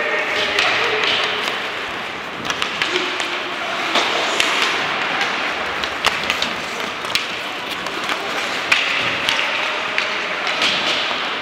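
Ice hockey play in a rink: irregular sharp clacks and thuds of sticks, puck and boards over a steady background hubbub.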